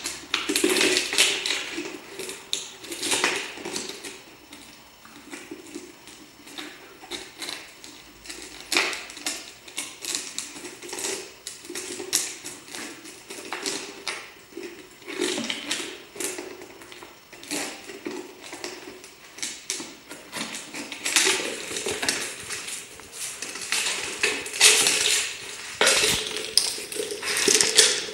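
Empty plastic JIF peanut butter jar crackling, clicking and scraping on a concrete floor as an Alaskan Malamute puppy chews and paws at it. Irregular sharp clicks and crinkles throughout, in busier flurries near the start and over the last several seconds.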